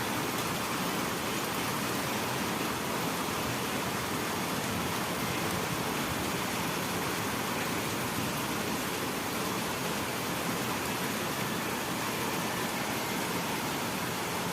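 Heavy monsoon rain falling, a steady unbroken hiss with no thunder.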